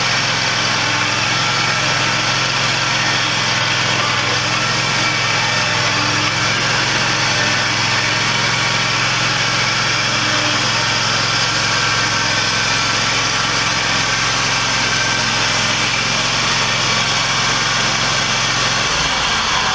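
Small engine of a riding lawn mower running steadily while the mower creeps forward with the home-built log hauler. The low hum shifts just before the end.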